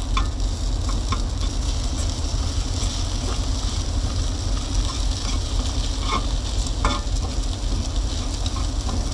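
Chicken and vegetables sizzling in a stainless steel pot while a utensil stirs them, with a few light knocks of the utensil against the pot about six and seven seconds in. A steady low hum runs underneath.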